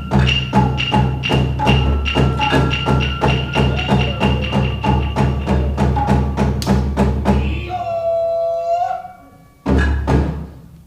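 Japanese dance stage music: sharp wooden percussion strikes in a rapid, even rhythm, about four a second, stopping about eight seconds in. A brief held pitched note follows, then one more strike near the end.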